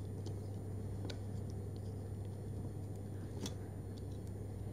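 Utility knife blade scraping and cutting along the packing tape on a small cardboard box: faint scratching with a couple of sharp clicks, over a steady low hum.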